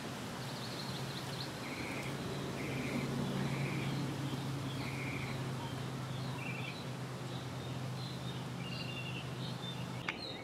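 Birds chirping in short repeated calls over a steady low hum, which stops near the end.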